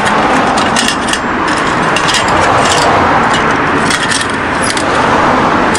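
Pressurised liquid-fuel camp stove burning with a loud, steady rushing noise, with a few light metallic clicks on top.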